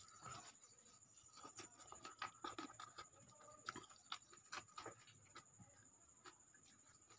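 Faint eating sounds: irregular wet clicks and smacks of chewing, and fingers working rice, dal and chowmein by hand. A steady high whine runs underneath.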